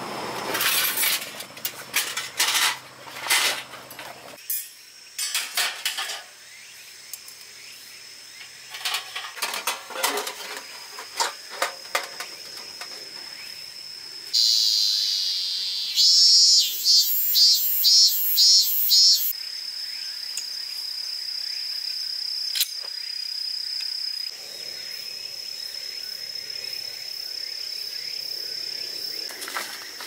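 Scattered rustles and clicks of handling in the first seconds, then cicadas singing: a buzzing call starts about halfway through, turns into loud rhythmic pulses, about two to three a second, for a few seconds, and settles into a steady high shrill that carries on to the end.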